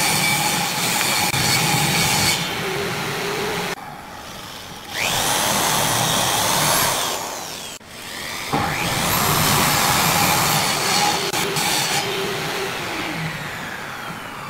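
Electric drill boring into a small wooden block clamped in a bench vise, in two runs: each starts with a rising whine as the motor spins up, the first winding down after a couple of seconds, the second running on and gradually easing off. Steady machine noise fills the first two seconds or so.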